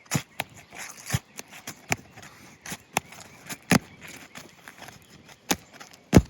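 Old asphalt shingles being pried up off a roof: about a dozen sharp, irregular cracks and snaps as the sealed shingles are forced loose, the loudest near the end.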